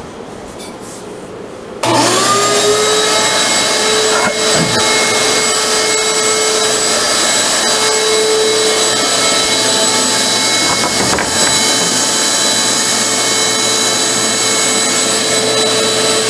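An electric motor in the shop switches on about two seconds in, rises briefly in pitch as it spins up, then runs steadily and loudly with a steady whine.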